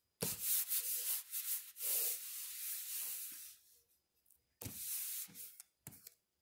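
Hand rubbing and smoothing black construction paper flat, pressing it onto a file folder coated with glue stick: a dry swishing of skin over paper for about three and a half seconds, then after a short pause a briefer rub near the end.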